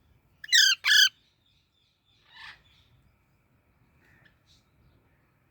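Baby parrot squawking: two loud, harsh calls in quick succession about half a second in, then a fainter, shorter call about two and a half seconds in and a few faint chirps near the end.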